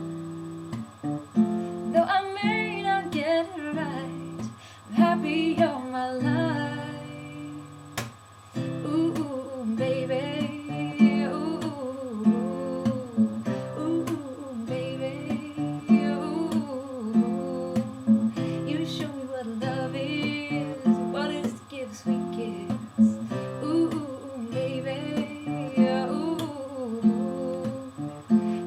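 Acoustic guitar strummed in a steady rhythm, with a singing voice carrying the melody over it.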